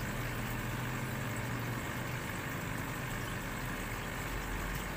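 Steady low rumble of motor-vehicle traffic, with an engine idling.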